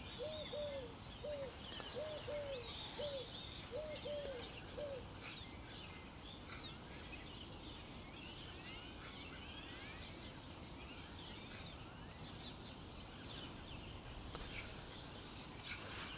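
Faint chorus of wild birds chirping and trilling, with a low cooing call repeated, often in pairs, through the first five seconds or so.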